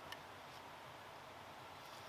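Quiet steady outdoor hiss with one short click just after the start, from a small knife cutting a sweet potato vine stem.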